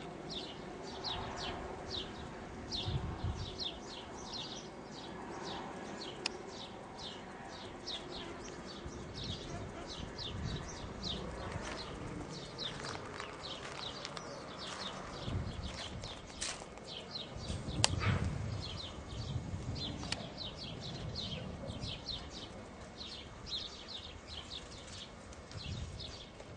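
A steady series of short, high chirps, about two to three a second, repeating evenly throughout. Low rumbles come now and then, the loudest about eighteen seconds in.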